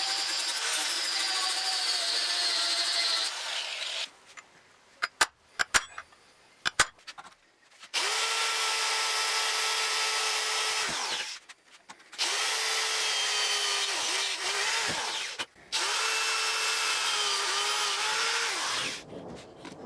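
Handheld electric power tool run in four bursts of about three seconds each, stopping between them, with a few sharp clicks during the first pause.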